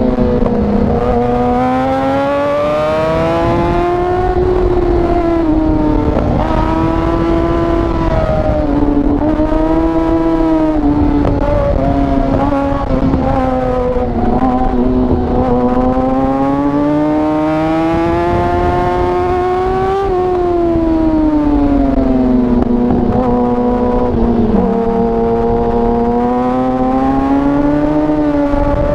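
Yamaha R6 600 cc inline-four engine heard from on board, its revs rising and falling in long sweeps as the bike accelerates and slows. There are a few sudden drops in pitch along the way.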